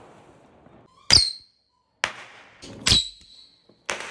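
A few sharp firecracker bangs about a second apart, each with a brief high ringing tail.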